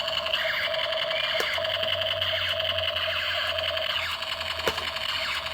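MONTOY Combat Mission Ball Gun toy playing its electronic machine-gun sound effect through its built-in speaker: a steady, fast-fluttering electronic rattle with a high tone, running without a break. A couple of faint clicks come through partway in.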